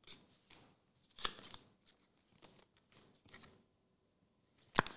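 Trading cards being handled: quiet, scattered rustles and slides of card stock against card stock, with a sharper, louder crinkle of a foil card pack's wrapper near the end.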